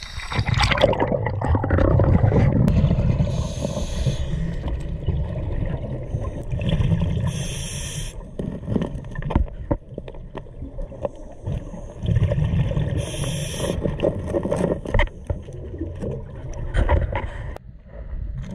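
Scuba diver breathing through a regulator underwater: three short hisses of inhaled air, with low rumbling exhaled bubbles between.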